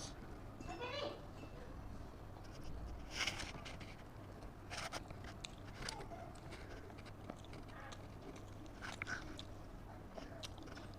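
Close-up chewing and biting of a person eating a beef burger, with scattered soft mouth clicks and smacks.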